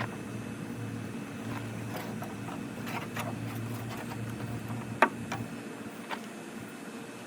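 Dogfennel hand-drill spindle spun between the palms on a hard tulip poplar fireboard: a steady low grinding with scattered light clicks, and one sharp click about five seconds in.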